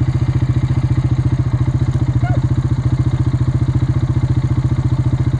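Engine idling with a steady, evenly pulsing low note. A single short high call cuts in about two seconds in.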